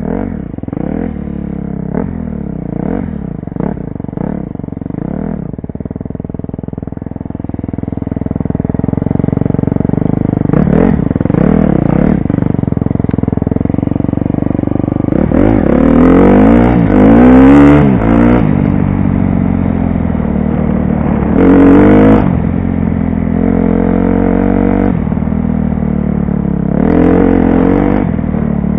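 2012 KTM 250 SX-F dirt bike's single-cylinder four-stroke engine, heard from the rider's helmet, being ridden on a dirt trail. Short throttle blips come first, then the engine builds up and revs hard through the gears, most strongly about sixteen seconds in and again near twenty-two seconds.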